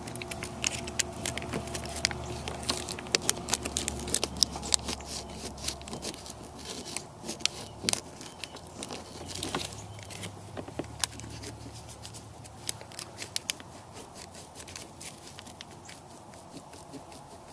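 A cleaner wipe rubbing and scrubbing the rear window glass at the detached defroster wire tab, giving irregular scratchy, crinkly clicks that thin out in the second half.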